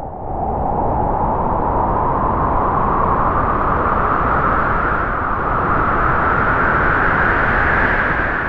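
A strong gust of wind blowing, swelling in the first half second and holding steady, its pitch slowly rising, then starting to fade near the end.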